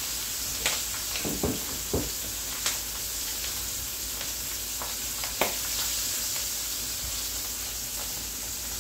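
Peppers, tomatoes and herbs sizzling steadily in a stainless steel skillet. A few sharp clinks and knocks of tongs and a plate come as seared chicken thighs are set into the pan, mostly in the first three seconds and once more about halfway through.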